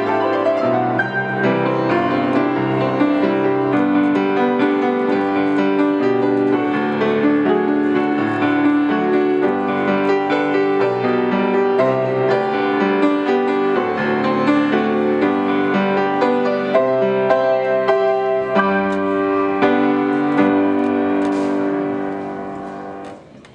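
Solo grand piano playing a hymn arrangement in full chords over a moving bass line. Near the end a last chord is held and rings out, fading away.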